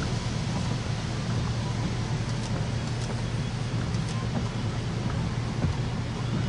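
Steady low rumble under an even hiss, from storm wind and the stopped chase vehicle.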